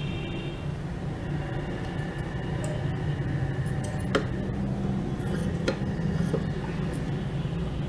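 Scissors cutting a strip of fabric: a few sharp metallic snips of the blades, the clearest about four seconds and nearly six seconds in, over a steady low hum.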